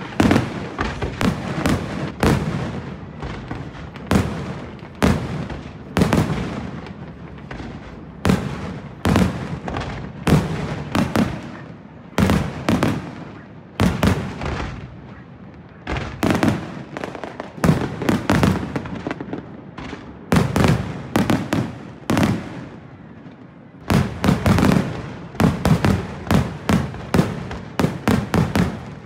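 Fireworks display: aerial shells bursting one after another in sharp bangs, each trailing off in crackle. The bangs ease off briefly a little past two-thirds of the way, then come in a quick volley near the end.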